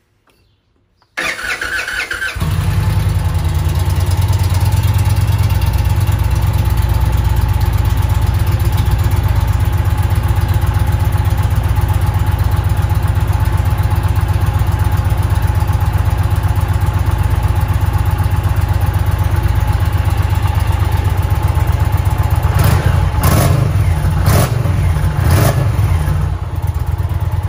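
Stock Indian Challenger's PowerPlus liquid-cooled V-twin with its factory exhaust and intake, cranked on the starter for about a second, then catching and settling into a steady idle. Near the end come a few short, louder bursts.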